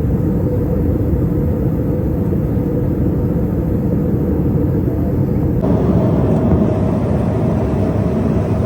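Airliner cabin noise in flight: a steady, loud rumble of engines and rushing air. About five and a half seconds in it changes abruptly to a brighter, hissier tone.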